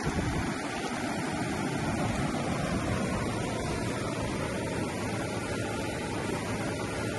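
Steady rushing noise of surf on a beach, with wind buffeting the microphone.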